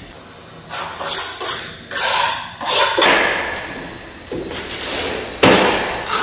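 Hand tools handled on a wooden worktable: scraping and rustling for a couple of seconds, then one sharp knock about five and a half seconds in as a tool is put down.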